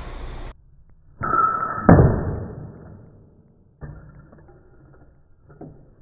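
An airgun shot at the target line, heard from beside the targets, muffled: a short burst of noise, then a sharp hit that dies away over about a second. A fainter knock and a small click follow.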